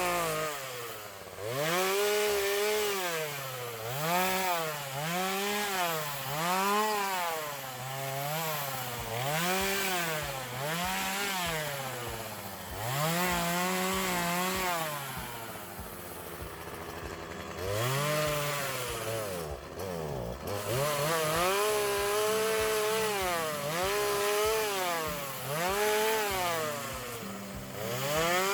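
Small engine of a handheld power tool revving up and down over and over, its pitch climbing and dropping about once a second, with a few longer stretches held at high revs.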